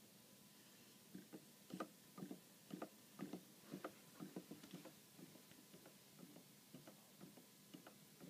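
Mark Mason Kairos handmade wooden pendulum clock ticking: its escapement clicks about twice a second once the bob is let go, fainter after about five seconds, with the pendulum knocked slightly off centre.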